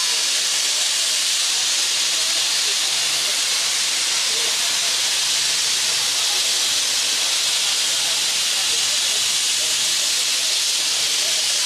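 Steam locomotive blowing off steam: a steady hiss that holds at one level, with no exhaust beats.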